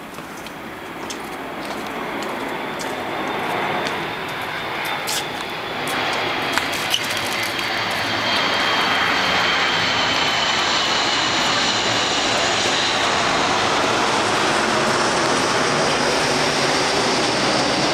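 Steady roar of a passing engine, swelling over the first several seconds and then holding, with a faint whine slowly falling in pitch; a few light clicks in the first seconds.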